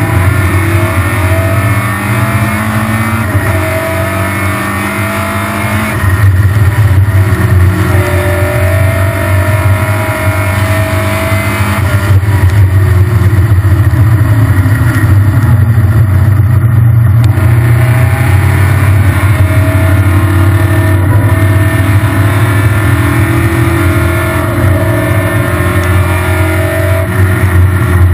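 Triumph Spitfire race car's four-cylinder engine heard from the open cockpit at racing speed, its pitch climbing and dropping repeatedly as it revs up and eases off through the corners.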